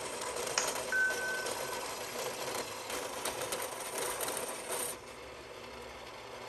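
Portable bandsaw, set up vertically, cutting a notch in a metal trim-tab drop fin: a steady rasping cut with a brief squeal about a second in. The cutting noise drops away about five seconds in as the piece comes off the blade.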